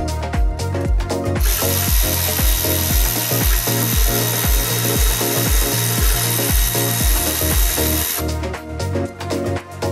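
Background electronic music with a steady kick drum at about two beats a second. A steady hiss runs over it from about a second and a half in until about eight seconds.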